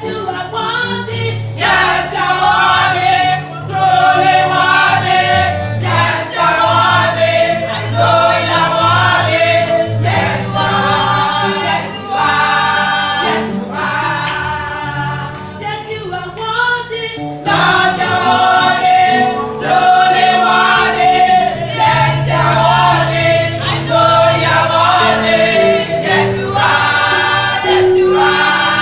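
A choir singing a gospel song over low, steady accompanying notes that step from pitch to pitch.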